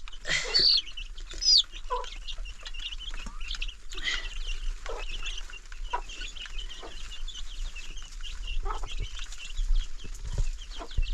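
Birds, most likely domestic fowl, calling in many short, overlapping chirps and clucks.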